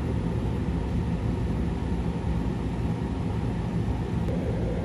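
A steady low rumble of background noise, even throughout with no distinct events.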